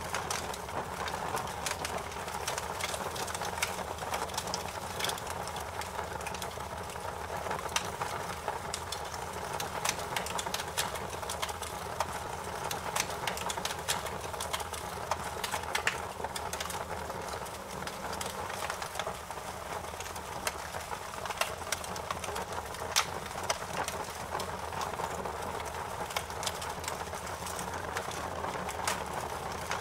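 Fireplace fire crackling: frequent irregular sharp pops and snaps over a steady soft rushing noise.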